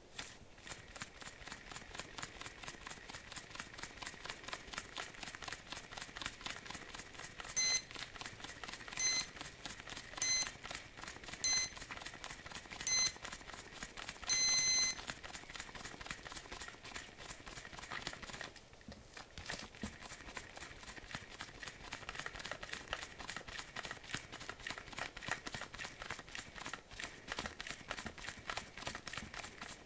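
Shimano Dendou electric reel paying out line, its turning spool giving a rapid, steady ticking. Partway through, the reel's electronic beeper sounds five short beeps about a second and a half apart, then one longer beep. The beeps are the loudest sounds.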